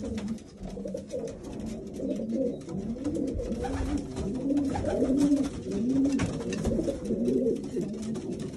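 Several racing pigeons cooing, their low rising-and-falling coos repeating and overlapping, with scattered light clicks.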